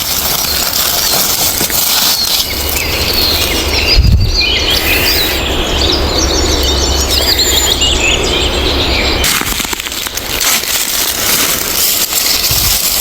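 Small birds giving rapid, short chirps over a loud, steady noisy background, with the chirping busiest in the middle. A single dull thump comes about four seconds in.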